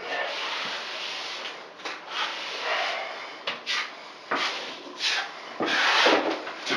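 A hand sweeping over fiberglass mesh tape to press it flat onto a wallboard seam: a series of dry rubbing strokes, a long one at the start, several short ones, and a louder one near the end.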